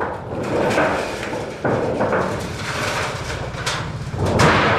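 Long-span metal roofing sheet being manhandled: noisy rattling and scraping of the sheet metal, broken by several sudden knocks, the loudest near the end.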